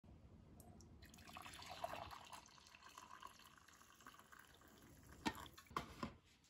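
Liquid poured into a ceramic mug, a faint steady splashing trickle starting about a second in. Near the end come three sharp clinks of a stirrer tapping against the mug.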